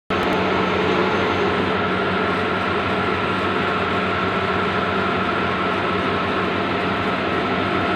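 Bluewin outdoor large-format digital printer running: a steady mechanical whir with a constant hum and no breaks.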